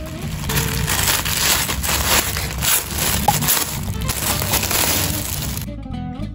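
Crinkling and rustling of a foil mailer bag and plastic wrap being opened and handled, a dense crackle that stops about five and a half seconds in.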